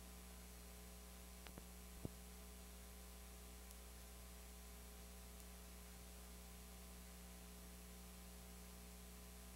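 Near silence: a steady low electrical hum with faint hiss, broken only by two small clicks about one and a half and two seconds in.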